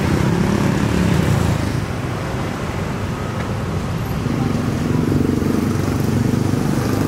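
Road traffic: small motorcycle engines and a car passing, with a steady low engine hum that dips a little after about two seconds and builds again in the second half.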